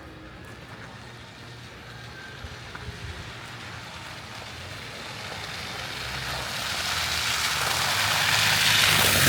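A road vehicle approaching and passing: a low engine hum under a swelling hiss of tyres that grows steadily louder to a peak near the end.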